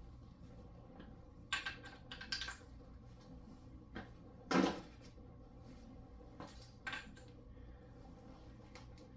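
Metal tools and engine parts clinking and knocking, a few scattered clicks with one heavier clunk in the middle, as the motor mounts are unbolted from a Ford 5.0 V8 on an engine stand. A low steady hum underneath.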